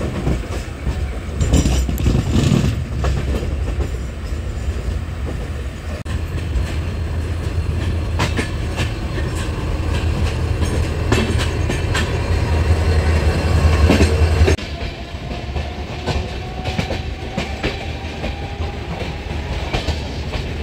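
Express train coaches running on the track: a steady low rumble with sharp clicks of the wheels over rail joints. The rumble drops off suddenly about fifteen seconds in, and a faint rising whine follows near the end.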